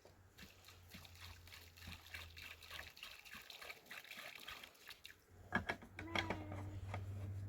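Water trickling and splashing, then a few sharp knocks about five and a half seconds in.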